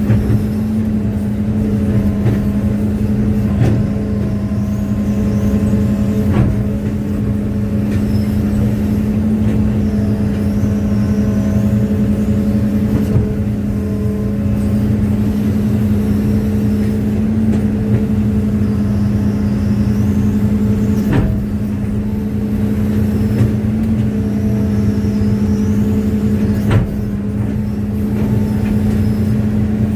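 Excavator's diesel engine running steadily at a constant speed, with a few sharp knocks now and then.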